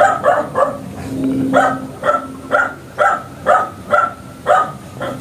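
A dog barking repeatedly: three quick barks, a pause of about a second, then a steady run of about two barks a second.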